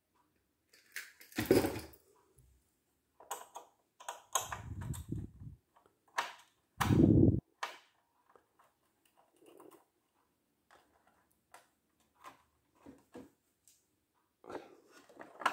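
A small screwdriver working the screw of the plastic battery-compartment cover on a FAYEE FY004 RC truck: scattered light clicks and scrapes of metal on plastic, with a few louder bumps of handling about a second and a half in, around five seconds and about seven seconds in.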